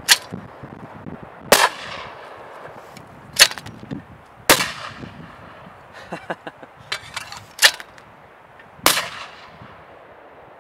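A hand-held spring clay trap snaps off three times, and each release is followed a second or so later by a shotgun shot that trails off with an echo. A few lighter clicks come in between the pairs.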